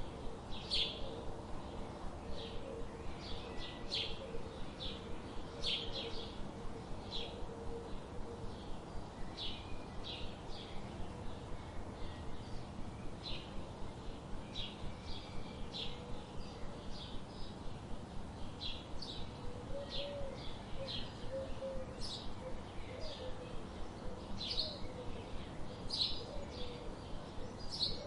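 Birds chirping in a forest: short, high chirps repeating about once or twice a second over a soft background hiss.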